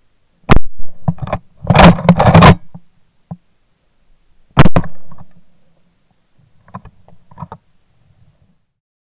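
Two shots from a Hushpower sound-moderated .410 shotgun, recorded close up by a gun-mounted camera, about four seconds apart. A burst of clatter follows the first shot, and a few faint knocks come near the end.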